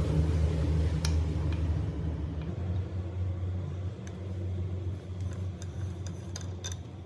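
A low, steady mechanical hum that fades gradually, with a sharp click about a second in and a scatter of light ticks in the second half.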